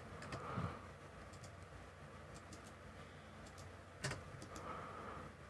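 Faint computer keyboard keystrokes and mouse clicks: a few scattered light taps, with a soft low sound about half a second in and one sharper click about four seconds in.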